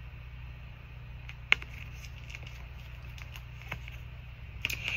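Tarot cards being handled: a few light clicks, the sharpest about a second and a half in, over a steady low hum.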